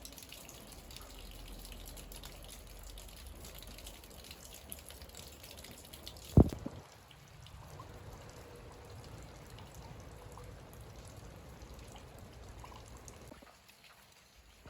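Water dripping and trickling as a steady background, with one sharp knock about six seconds in.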